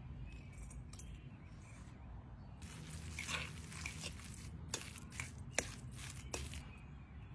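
Spoon stirring a thick chicken and cream-cheese mixture in a glass bowl: wet squishing strokes with a few sharp clicks of the spoon against the bowl, starting about two and a half seconds in.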